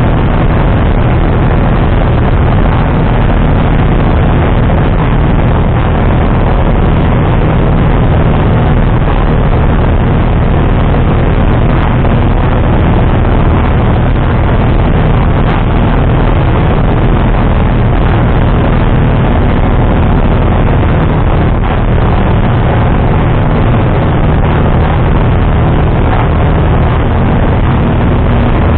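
Single-engine light aircraft's piston engine and propeller running at steady power, a low even drone heard from inside the cockpit.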